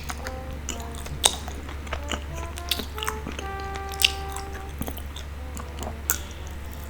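Light background music with a few held notes, over scattered sharp, moist clicks of sticky food being handled or chewed.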